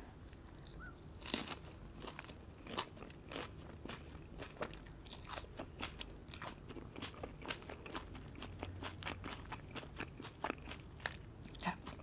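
Close-miked mouth sounds of biting and chewing crisp lettuce, with many sharp crunches throughout. The loudest comes about a second in.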